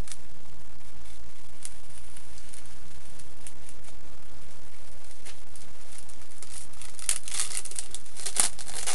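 Packaging being cut open with a box cutter and torn: scattered crinkles and tearing crackles that grow much busier in the last few seconds.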